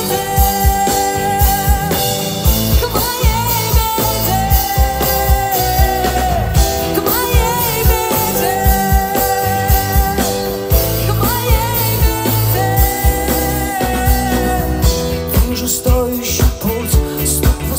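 Live rock band playing through a large PA: a steady drum beat under bass, electric guitar and keyboards, with a woman singing long held notes.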